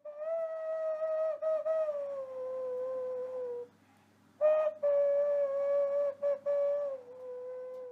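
Two long held notes with a slight waver, each easing down in pitch. The first stops about three and a half seconds in; after a short break, the second starts louder and slides lower near the end.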